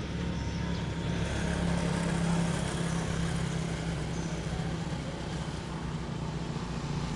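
A motor vehicle's engine running steadily with a low hum under road noise.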